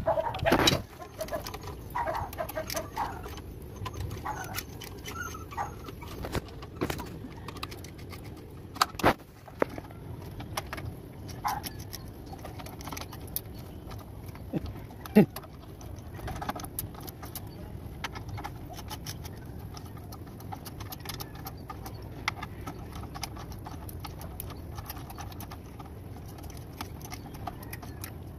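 Socket wrench working the bolts of a Hino F21 clutch pressure plate: irregular metal clicks and clinks of the tool and bolts, with a few sharper knocks, the loudest a pair about nine seconds in and a single one about fifteen seconds in.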